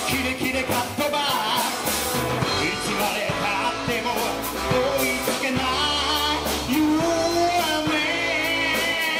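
Live rock band playing loud: a man sings into a microphone over electric guitars and a drum kit.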